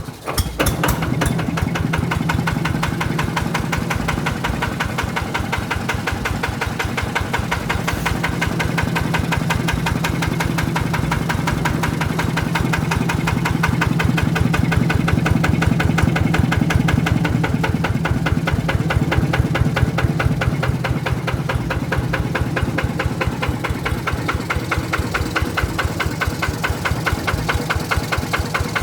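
Yanmar TF120 DI single-cylinder diesel engine running steadily at idle, with a fast, even knock of firing strokes. The engine has stood unused for over two years.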